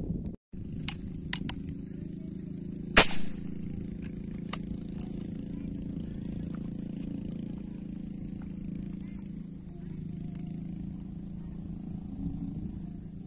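Outdoor background of a steady low hum and a faint, steady high-pitched whine. It is broken by one sharp, loud snap about three seconds in and a few lighter ticks before and after it.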